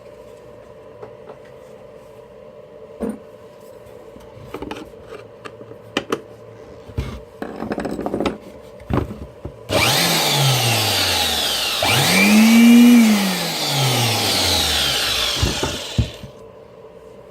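A few clicks and knocks of handling, then the reassembled Rok 600 W electric blower is switched on about ten seconds in and runs with a loud rushing whine whose pitch rises and falls, before cutting off about six seconds later. It is back running after its repair, a little bearing noisy.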